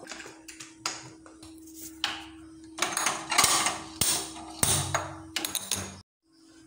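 Aluminium pressure cooker being handled: a run of sharp metal knocks and clicks as the lid is fitted, then louder scraping and clattering as it is locked and set down on the gas stove. A low steady hum runs underneath, and the sound cuts off abruptly near the end.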